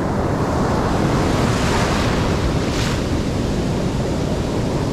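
Ocean surf breaking on a beach, with wind buffeting the microphone; a wave's hiss swells and peaks a little under three seconds in.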